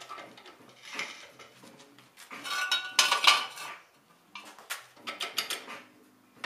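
Metal clanks and clicks of a floor jack's steel handle and a steel jack stand being handled and set under a raised car. The loudest is a ringing metal clank about two and a half seconds in, followed after about four seconds by a quick run of sharp clicks.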